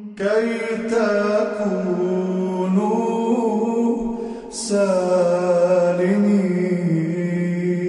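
A man singing a slow, chant-like hymn melody in long held and gliding notes, with no clear words, breaking off briefly about four seconds in before carrying on.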